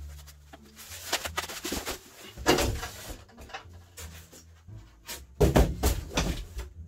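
Plastic wrapping crinkling and styrofoam packing scraping and rubbing as a benchtop band saw is lifted out of its box. The noise comes in irregular bursts, loudest about two and a half seconds in and again around five and a half to six seconds.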